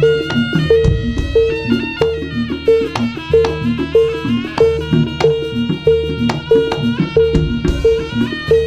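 Jaranan gamelan music: drums and percussion over a steady repeating pitched beat, about two and a half strokes a second, with a held melody line above.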